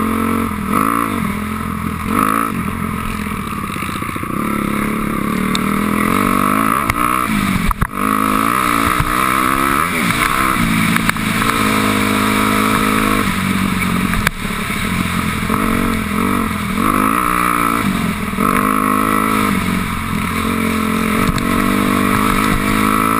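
2006 Honda CRF250R's single-cylinder four-stroke engine under way on a dirt trail, its pitch climbing and dropping again and again as the throttle is worked and gears change. A brief sharp knock comes about eight seconds in.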